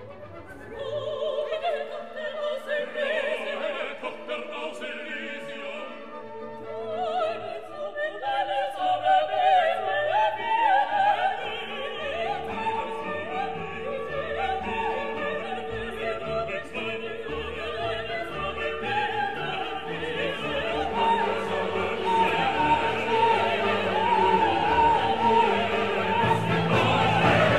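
Classical background music: an operatic voice singing over an orchestra. It comes in about a second in and grows louder toward the end.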